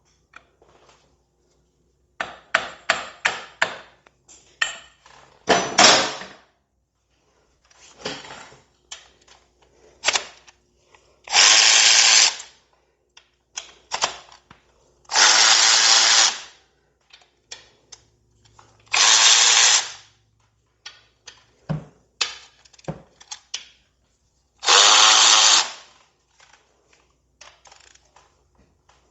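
A power drill or driver runs in short bursts of about a second and a half, four times, unscrewing bolts from a motorcycle's primary drive. Between the bursts come clicks and clanks of hand tools and parts.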